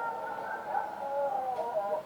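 Street dogs howling: several long, slightly wavering held notes sounding together, which stop suddenly at the end.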